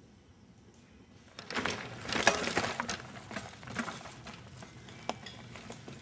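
Mountain bike clattering down a rough trail: a sudden burst of dense metallic rattles and knocks about a second and a half in, loudest around two seconds in, then easing to scattered clicks and bumps.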